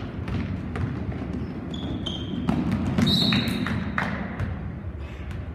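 High school basketball game sounds on a hardwood gym floor: the ball bouncing, a few short high sneaker squeaks near the middle, and a low murmur from the stands.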